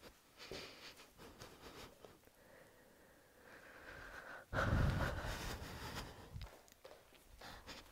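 Footsteps and clothing rustle picked up by a clip-on microphone, with a sudden loud thump and rustling about four and a half seconds in that fades over a couple of seconds.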